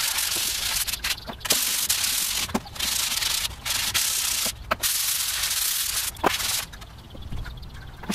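Sandpaper rubbed by hand over a black-painted metal barbecue part: a run of hissing back-and-forth strokes with short pauses between them, growing quieter near the end. This is the old finish being scuffed before repainting.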